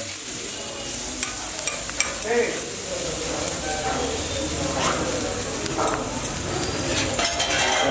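Dosa sizzling on a hot flat griddle, a steady frying hiss, while a metal spatula scrapes and spreads masala paste over its cheese topping, with a few short scrapes and clicks.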